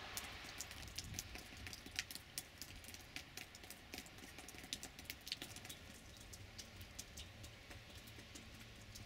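Falling snow pellets tapping close to the microphone: many irregular sharp ticks over a faint hiss.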